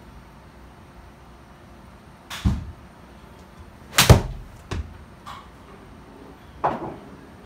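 A golf club strikes a ball off the hitting mat of an indoor golf simulator, with one sharp crack about four seconds in. A smaller smack follows a moment later as the ball hits the simulator screen. Duller thumps come a couple of seconds before and after.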